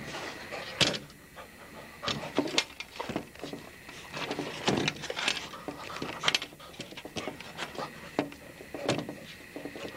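A pit bull panting close by, with scattered knocks and bumps.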